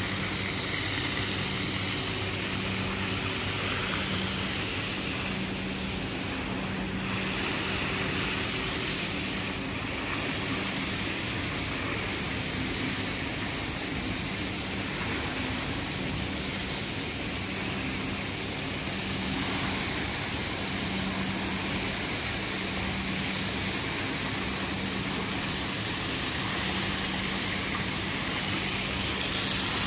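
Rug-cleaning machinery running steadily: a constant motor hum under an even hiss.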